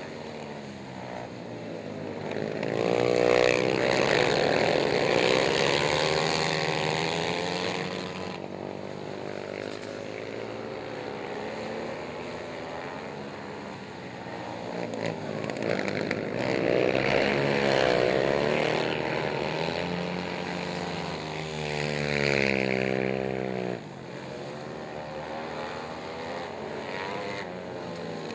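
Several racing quad ATV engines revving hard as the quads pass around a dirt oval. The pitch swoops up and down, and the sound swells loudest twice: a few seconds in and again past the middle.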